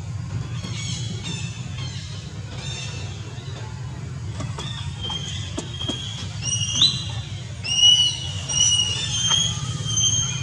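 Baby monkey giving high, thin squealing calls: faint short notes at first, then louder drawn-out squeals from about halfway, some sliding upward and one sliding down. A steady low hum runs underneath.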